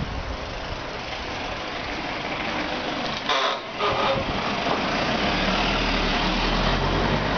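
Toyota HiAce van's engine running as the van passes close by, its low hum growing louder in the second half, over steady wind and road noise. A brief shrill sound comes about three seconds in.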